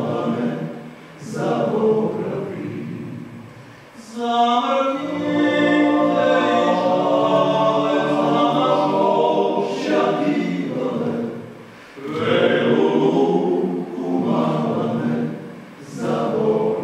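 Male vocal group singing a cappella in close harmony, in phrases that swell and fade with short breaks between them, including one long held passage of several seconds.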